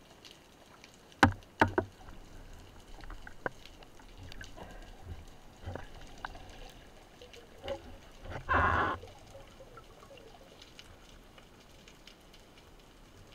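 Underwater sound picked up by a spearfisher's camera: two sharp knocks a little over a second in, scattered fainter clicks, and a short rushing burst about eight and a half seconds in, over a low background of water noise.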